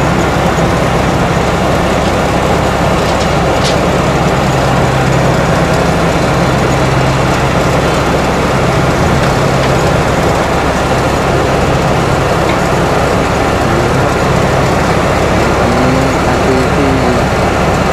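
Rice combine harvester running with a steady engine hum and machinery noise while it unloads grain through its auger into a truck.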